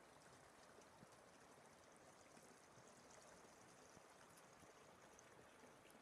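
Faint, steady rush of a river flowing over its rocky bed.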